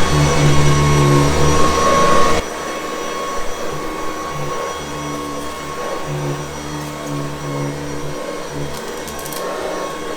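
Vintage Hoover Convertible U4387 upright vacuum cleaner running with a steady motor hum. The sound drops suddenly to a quieter level about two and a half seconds in and carries on steadily.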